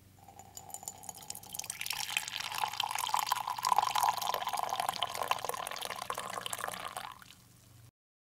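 Coffee being poured in a steady stream into a ceramic mug, a splashing, filling sound that builds over the first couple of seconds and stops about seven seconds in.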